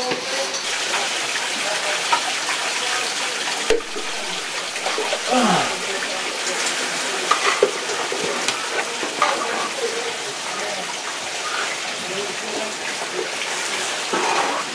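Cave stream water running and splashing steadily, with a few short knocks, and a brief break about four seconds in.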